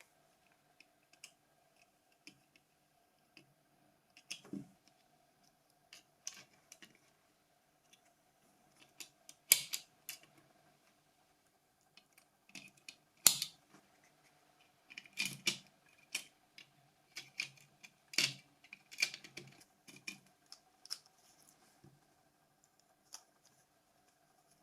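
Small parts of a Nokia 5210 phone being handled and fitted by hand during reassembly: scattered light clicks and scrapes of plastic and metal, with two sharper clicks about ten and thirteen seconds in and a busier run of clicks later on.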